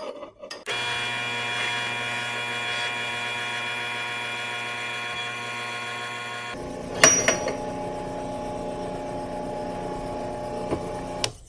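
Drill press motor starts and runs with a steady hum. About six seconds in, the bit cuts into the metal and the sound turns rough; a sharp clank follows as the bit grabs the unclamped workpiece and spins it into the drill press column. The press keeps running with a ragged chatter and stops near the end.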